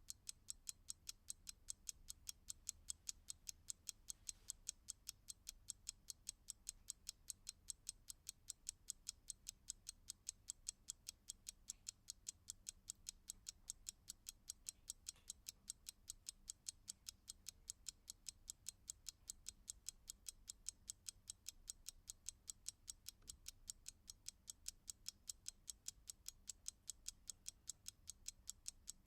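Clock ticking steadily, with sharp, even ticks several times a second.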